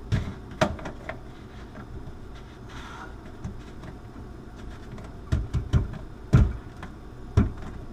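Black plastic sink-drain fittings knocking and clicking as a slip-joint nut is hand-tightened onto the tailpiece, a stubborn nut worked round by hand. A few scattered knocks at first, then a cluster of sharper, louder knocks in the last few seconds.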